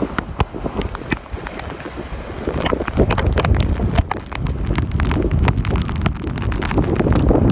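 Hurricane-force wind buffeting the microphone in a loud, rumbling rush that grows stronger about three seconds in, with many sharp, irregular clicks and taps over it.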